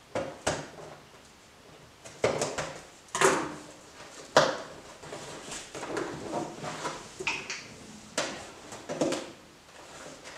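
Scissors cutting through the taped seam of a cardboard parcel: a string of irregular scraping, snipping and rustling strokes, the loudest a little past three and four seconds in.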